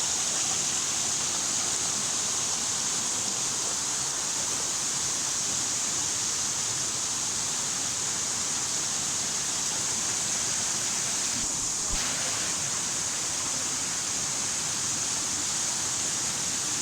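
Waterfall rushing steadily, an even hiss of falling water, with one brief knock about twelve seconds in.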